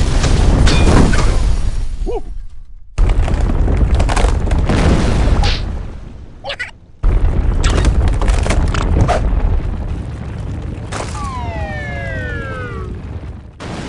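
Cartoon earthquake sound effects: a loud, deep rumble with crashes and cracking of splitting ground, cut off abruptly twice. Near the end the rumble eases and a pitched wail slides downward for about two seconds.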